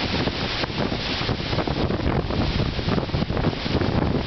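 Tropical-storm wind (the tail of Hurricane Irene) buffeting the camera microphone: a loud, rough rumble that comes and goes in gusts.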